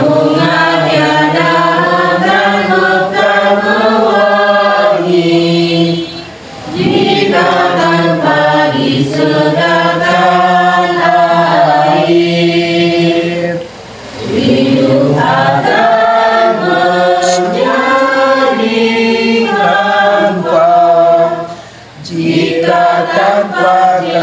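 A group of voices singing an Indonesian-language Christian hymn in long sung phrases of about seven seconds each, with short breaks for breath between them.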